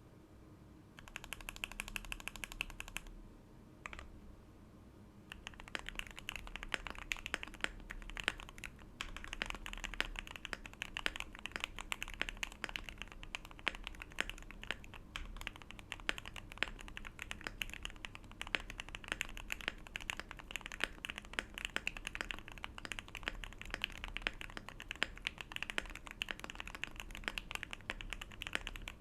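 Typing on an Akko Mod006 mechanical keyboard with lubed Gateron Yellow Clear Pro linear switches, PBT keycaps, an aluminium plate, case and plate foam and a tempest tape mod: a fast run of key strokes, a brief pause about three seconds in, then steady fast typing again.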